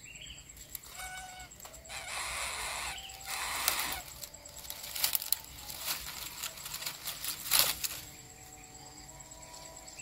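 Dry palm-leaf nest litter rustling and crackling, with many sharp clicks, as an adult coucal moves about on the nest and leaves it. The noise stops about two seconds before the end.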